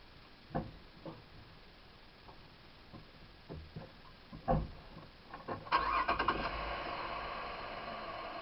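A few scattered knocks and clicks, then a vehicle engine starts a little past halfway and settles into a steady run.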